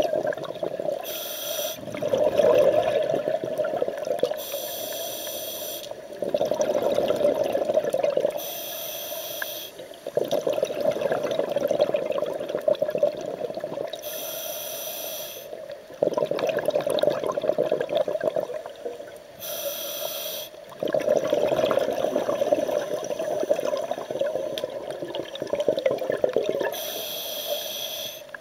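A scuba diver breathing through a regulator underwater: about six breaths, each a short hiss of inhalation followed by a longer rush of exhaled bubbles lasting a few seconds.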